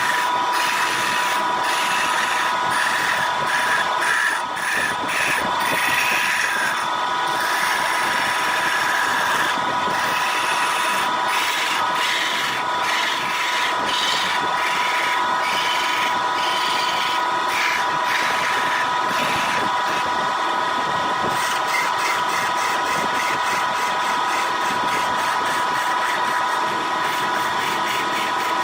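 Wood lathe running steadily, its motor giving a constant high whine over a noisy hiss.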